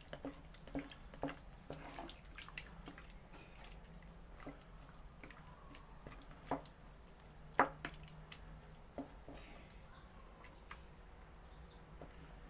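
Wooden spatula stirring chunks of pork and potato through a thin curry sauce in a nonstick pot: wet stirring sounds with scattered light knocks of the spatula against the pot, the loudest a little past halfway.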